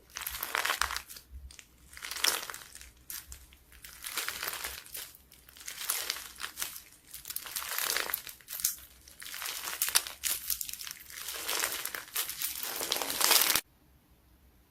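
Slime being squeezed and pressed by hand, a dense crackling and crunching that comes in swells about every two seconds and cuts off abruptly near the end.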